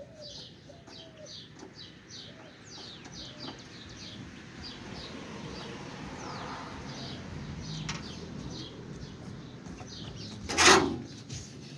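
Small birds chirping over and over in the background, with one loud sharp knock near the end.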